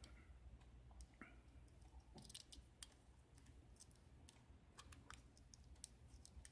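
Near silence with faint, scattered small clicks of a pin-tumbler lock cylinder and metal tools being handled.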